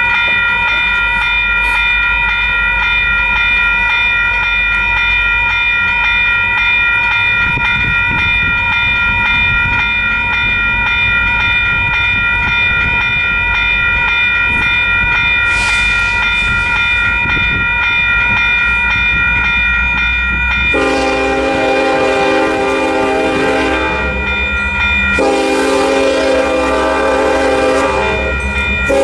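A grade-crossing bell rings steadily while the train approaches. About two-thirds of the way in, the lead KCSM SD70ACe's Nathan K5LLA five-chime air horn sounds two long blasts, each lasting a few seconds with a short gap between them, for the crossing.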